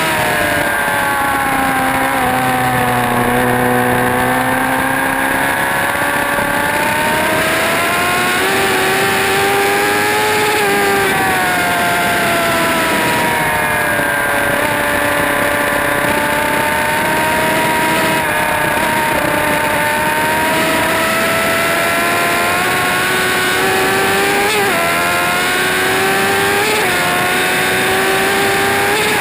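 Motorcycle engine running hard at high revs on a racetrack, its pitch sinking and climbing as the bike slows for corners and accelerates out, with a couple of quick pitch jumps near the end.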